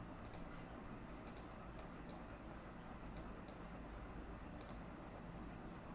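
Computer mouse clicking: about ten short, faint clicks, some single and some in quick pairs, at irregular intervals over a low steady hum.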